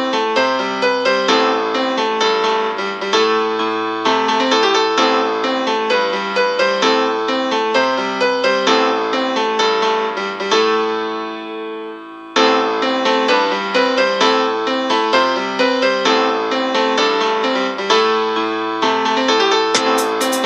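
Background music led by piano or electric piano, playing a repeating pattern of notes; about ten seconds in it fades briefly before starting again.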